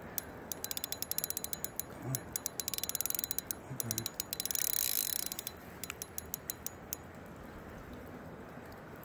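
Fishing reel clicking as it turns, in runs of rapid ticks: scattered clicks, then a fast run, then the loudest and quickest run a little past the middle, slowing to odd clicks near the end.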